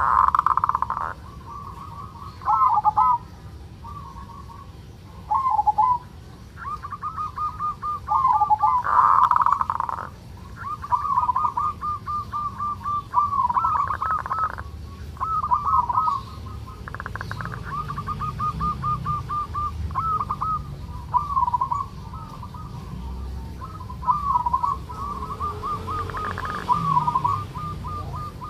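Zebra dove (local perkutut) giving its rolling 'kerot' call over and over: fast, purring trills at a steady pitch, with a few louder bursts. This call marks a bird in breeding condition (birahi).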